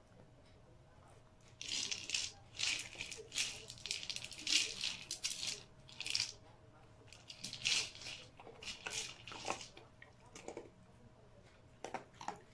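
Dry dog kibble rattling inside a hollow plastic treat-dispensing ball as a small dog noses and rolls it, in irregular bursts from about two seconds in until about ten, with two shorter rattles near the end.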